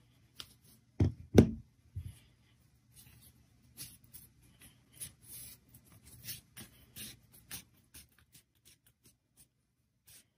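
Two sharp knocks about a second in, then green crepe paper rustling and crinkling in many short strokes as a strip is wrapped down a paper flower stem.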